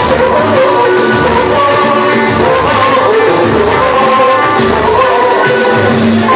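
A pagode band playing live: a pulsing bass line and drums under held melodic notes, with a shaker rattling through it.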